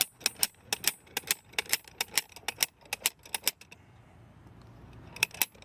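AMS hammer soil sampling probe being hammered deeper into the soil: rapid sharp metal clanks, about five a second, stopping after about three and a half seconds, then two more clanks near the end.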